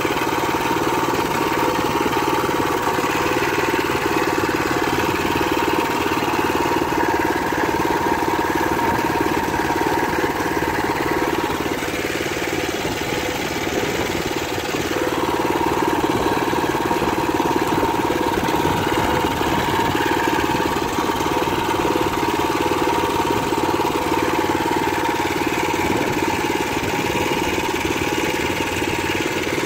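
Small air-cooled engine of a crawler-track grass mower, freshly oil-changed, running steadily, a little quieter for a few seconds near the middle.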